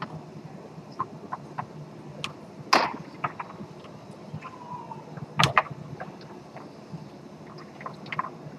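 Foosball ball and rods on a Tornado table in fast play: sharp clacks of the ball being struck by the plastic men and hitting the table walls, two loudest about three and five and a half seconds in, with lighter ticks between, over a low steady murmur of the crowd.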